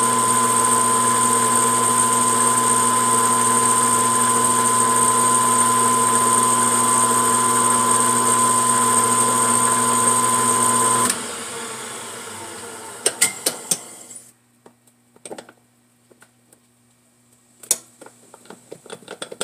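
Metal lathe running with a steady hum, switched off about eleven seconds in and spinning down over a few seconds. A few light clicks and knocks follow.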